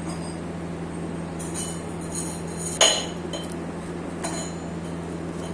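Light clinks and taps as a hair oil bottle and its packaging are handled, a few separate knocks with the loudest about three seconds in, over a steady low hum.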